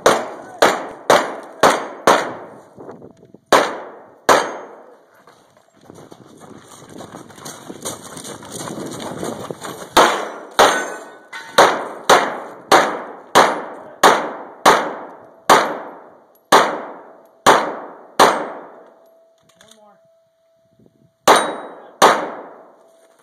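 Pistol shots fired in quick strings: five rapid shots, then two more, then after a pause a long run of about fourteen shots at roughly two a second, and two last shots near the end. A stretch of rushing noise fills the pause between the early strings.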